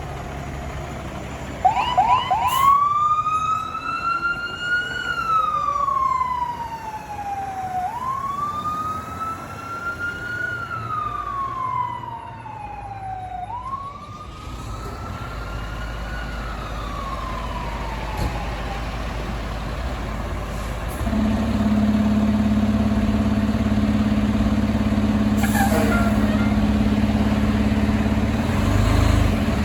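Fire truck siren wailing: a few quick chirps, then three slow rise-and-fall cycles that fade away. From about two-thirds of the way in, a heavy truck engine runs steadily with a low hum.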